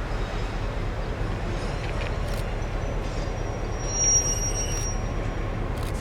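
Freight train rolling past with a steady rumble of wheels on rail. A thin high wheel squeal comes in a little before four seconds in and fades out about a second and a half later, along with a few short clicks.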